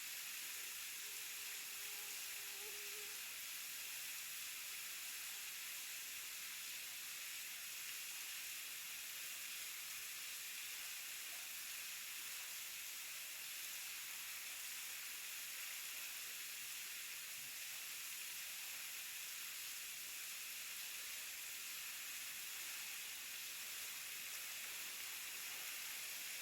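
Waterfall: a steady rush of falling water, mostly a high, even hiss that does not change.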